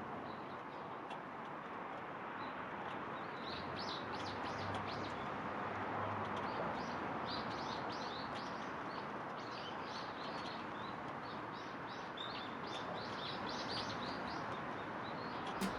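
Japanese white-eyes giving rapid, thin, high chirps, many short notes in a run. They start a few seconds in and die away near the end, over a steady background hiss.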